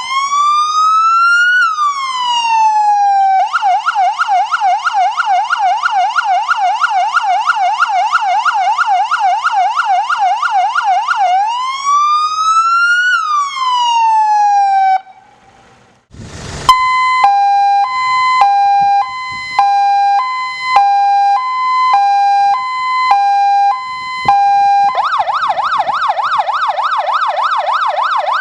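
Fire engine electronic siren cycling through its tones: a slow rising and falling wail, then a rapid yelp, then the wail again. About a second after a brief cut, it switches to a two-tone hi-lo alternation, and near the end it changes to a fast yelp.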